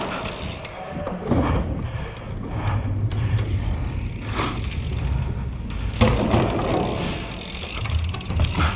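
BMX tyres rolling over wooden ramps and the concrete floor, a steady low rumble from a helmet-mounted camera, with sharper knocks about a second in and about six seconds in as the bike hits the wooden features.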